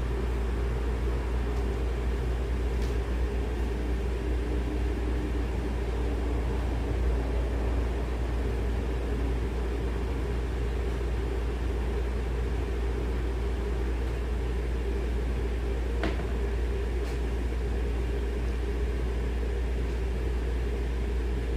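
A steady low mechanical hum, like a running fan or motor, with a few faint ticks.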